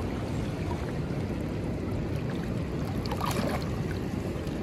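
Steady rush of river water, with light splashing about three seconds in from hands and an Atlantic salmon held at the surface for release.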